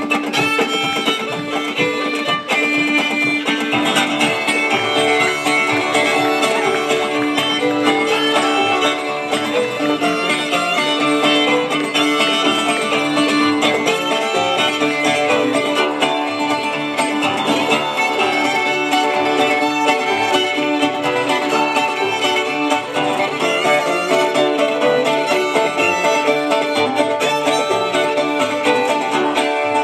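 Old-time string band playing live, with a fiddle carrying the tune over strummed acoustic guitar.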